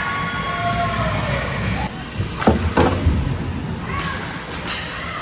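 Spectators shouting in an ice hockey rink over a steady low rumble of play, with a few sharp knocks about halfway through that are the loudest sounds.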